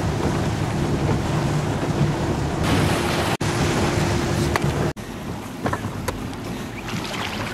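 Small motorboat's engine running steadily under way, with wind buffeting the microphone and water rushing past the hull. About five seconds in, the sound cuts abruptly to quieter wind and water.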